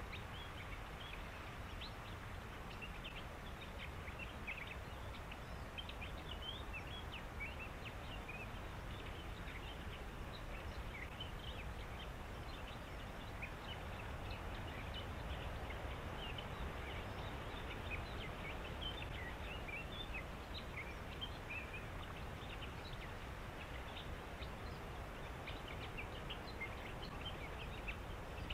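Many short, high chirps and calls from small animals in a reed bed, scattered irregularly throughout, over a steady low rumble and hiss.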